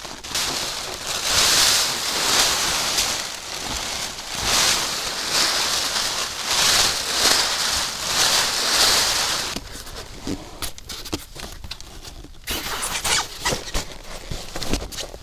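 Tent fabric of a FireHiking LEVA tipi tent rustling in repeated swishes as it is pulled up and bundled over the snow. Near the end, after a short quieter stretch, lighter crinkling and clicks as a bag is handled.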